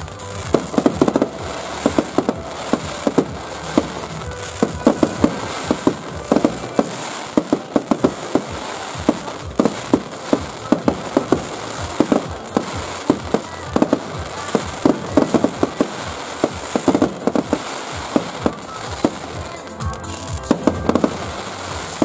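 Fireworks display: aerial shells bursting with many sharp bangs and crackling pops in quick, irregular succession, several a second.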